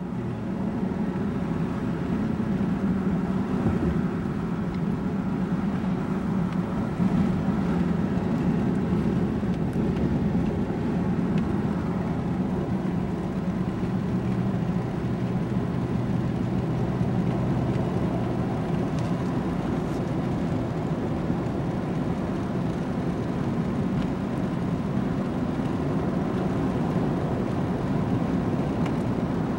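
Steady engine and road noise inside a moving car's cabin, a low even drone that holds without change.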